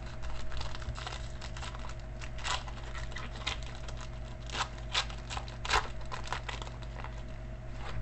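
Wrapper of a Spectra football card pack being torn open and crinkled by hand: a run of crisp crackles and rustles, with a few sharper rips about two and a half, five and five and a half seconds in.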